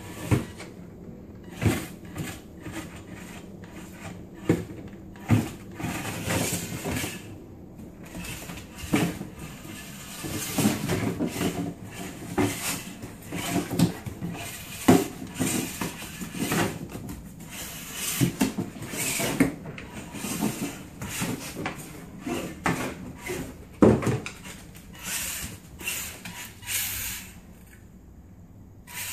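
Dog nosing and pawing at an upturned cardboard cereal box on a vinyl floor: irregular knocks, scrapes and rustles of cardboard, busiest in the middle and again near the end.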